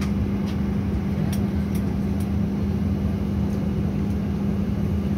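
Steady cabin noise inside an airliner before take-off: an even rumble with a constant low drone from the running engines and air-conditioning, and a few faint clicks.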